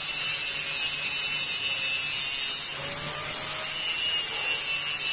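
Angle grinder with a grinding disc running against a metal weld bead, grinding off the excess weld: a steady high whine and grinding hiss that eases slightly for about a second partway through.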